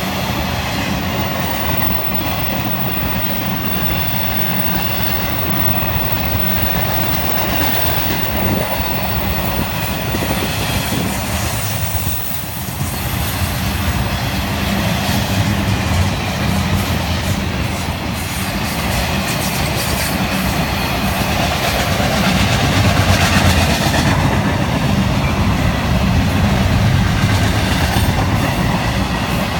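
Loaded intermodal freight cars of a Florida East Coast Railway train rolling past: a steady, loud noise of steel wheels on the rails. It dips briefly about twelve seconds in.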